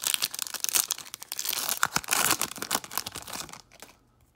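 Foil trading-card pack wrapper being torn open and crinkled by hand, a dense crackling that stops about three and a half seconds in.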